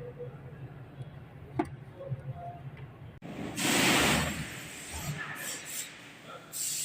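A low steady hum with a single click about one and a half seconds in. After an abrupt change a little past halfway, a loud hiss lasts about a second, followed by fainter scraping noises.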